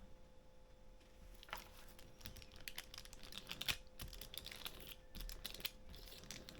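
Quick, irregular small clicks and taps of hands handling cork grip rings and a graphite rod blank at a workbench, over a faint steady hum.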